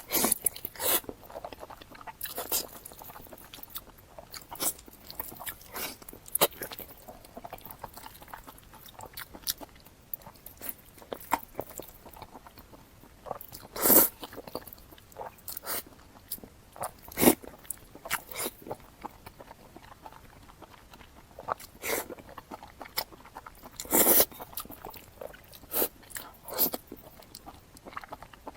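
Close-miked eating: irregular crunching bites and chewing, with a handful of much louder crunches, the loudest about halfway through.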